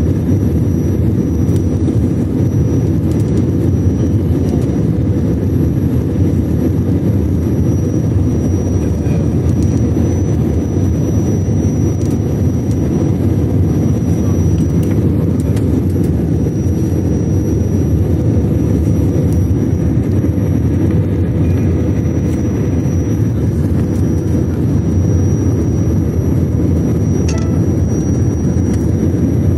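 IndiGo airliner's engines and rushing air during landing, a loud steady rumble with a faint high whine above it.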